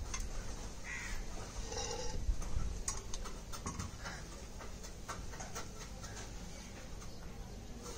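Vegetables being cut by hand: irregular light clicks and knocks, thickest between about three and six seconds in.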